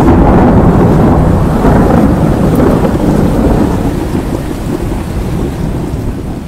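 A long rumble of thunder over heavy rain, starting suddenly and slowly fading away.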